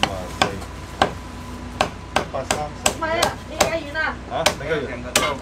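A Chinese cleaver chopping braised goose on a round wooden chopping block: about ten sharp chops at uneven intervals as the goose is sliced into pieces.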